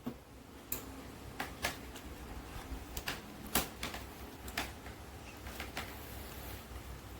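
Irregular sharp clicks and taps, about ten of them at uneven spacing, from hands working the second end of a UTP network cable with its RJ45 connector and tools.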